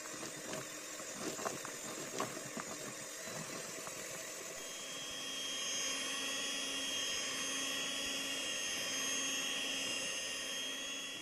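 Electric hand mixer running, its beaters working through a thick cookie dough; a few knocks in the first three seconds, then a steady motor whine.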